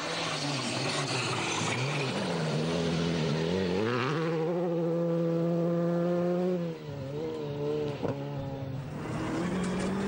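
Rally car on a gravel stage at full throttle. The engine note falls and climbs, then holds a steady high pitch for about two seconds before the driver lifts off, with a single sharp crack near the end.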